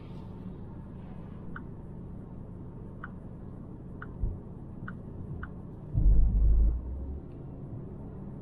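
Cabin sound of a Volvo V90 T5 Cross Country (2.0-litre turbocharged four-cylinder, 8-speed automatic) cruising at low speed: a steady low drone of tyres and engine, with a few light ticks. About six seconds in comes a louder low rumble lasting about a second.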